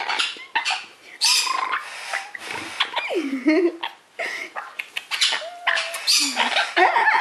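Young red-lored (yellow-cheeked) amazon parrot squawking and chattering during rough play: a string of short harsh squawks mixed with calls that slide up and down in pitch.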